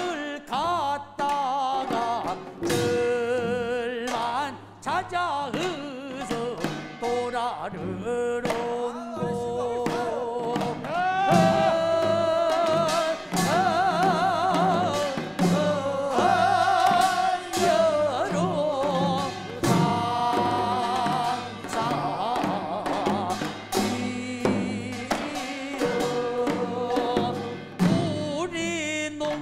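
Korean rice-transplanting field song sung by a group of voices with wavering vibrato, over regular strikes of buk barrel drums.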